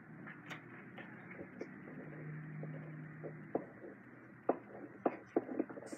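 Quiet room tone with a few faint knocks and clicks of household handling, most of them in the second half.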